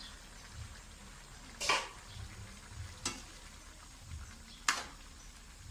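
Vegetables sizzling in a hot metal wok while a metal spoon stirs them, with three sharp clanks of the spoon against the pan about a second and a half apart.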